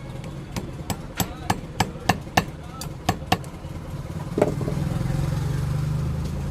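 A thin screwdriver clicking against the metal retaining tabs of a mixer grinder motor's bush housing as they are pried loose, about ten sharp clicks at roughly three a second, then a single knock. A low steady hum sets in near the end.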